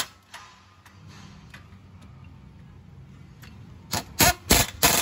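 Air impact wrench hammering on the front hub of an Isuzu Panther in short rattling bursts: one at the very start, then about three quieter seconds with faint ticks, then four quick bursts near the end.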